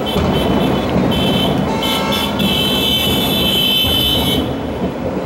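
Fireworks display going off: a continuous rumble of bursting shells and crackle. A shrill steady tone sounds in pieces, is then held for about two seconds, and cuts off about four seconds in.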